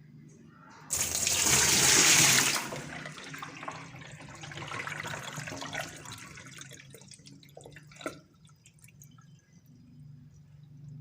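Water gushing out of a twin-tub washing machine's drain, starting suddenly about a second in. It is loudest for the first two seconds, then dwindles to a weaker flow that dies away by about six seconds. A single click comes near eight seconds.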